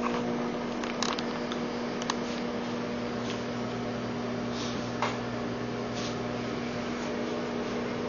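Microwave oven running while cooking: a steady buzzing hum at one low, fixed pitch over a hiss, with a few faint ticks.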